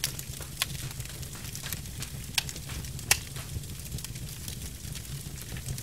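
Log fire crackling: scattered sharp pops and snaps over a low steady rumble, with a louder pop about three seconds in.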